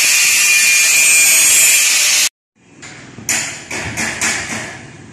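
A loud, steady hiss that cuts off suddenly about two seconds in. It is followed by a run of hammer knocks, about two a second, ringing in a large, bare concrete hall.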